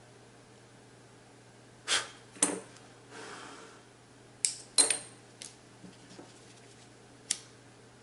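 Half a dozen sharp clicks and small taps of a hand-held lighter and tools being handled while the thread end is melted, the loudest about five seconds in, with a short soft hiss around three seconds in.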